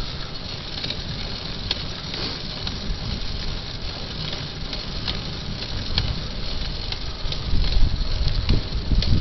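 Wind rumbling on the microphone over tyre noise from a bicycle rolling along an asphalt path, with faint scattered ticks and rattles.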